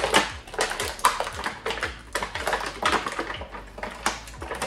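Clear plastic packaging crinkling and crackling as an action figure is pulled out of its bag and tray, in quick irregular rustles.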